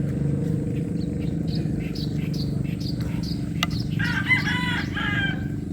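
A rooster crowing once, a call of about a second and a half starting about four seconds in, over a steady low hum. A few short high chirps come before it.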